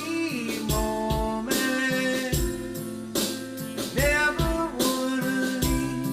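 A song: a singing voice over guitar with a steady beat of drums and tambourine.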